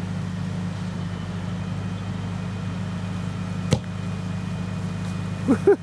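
A single sharp thump of a foot kicking a soccer ball, about two-thirds of the way in, over a steady low hum.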